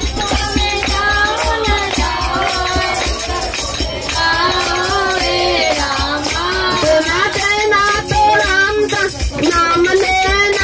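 A group of men singing a Hindu devotional kirtan in chorus, with rhythmic hand-clapping keeping the beat.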